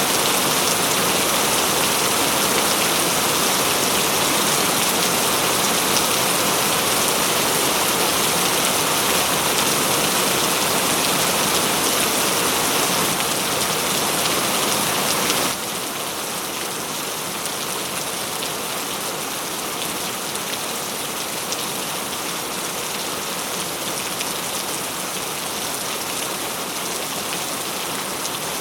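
Heavy rain falling steadily, a dense even hiss of drops. About halfway through it suddenly drops to a quieter level and carries on evenly.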